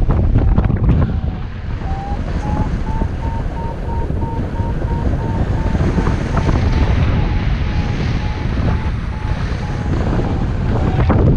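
Strong airflow rushing over the microphone of a paraglider in flight, with a variometer beeping steadily in short, evenly spaced pips. The beep pitch rises about two seconds in and then slowly sinks, signalling the glider climbing in lift, at first more strongly and then less so.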